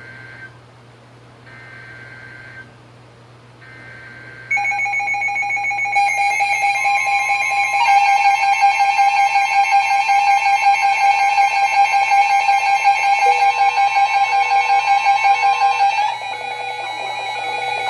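Three short buzzy two-tone digital data bursts, the EAS/SAME end-of-message code, in the first four seconds. About four and a half seconds in, a much louder electronic alert sound of several steady tones begins, growing fuller around six and eight seconds and changing pattern near the end.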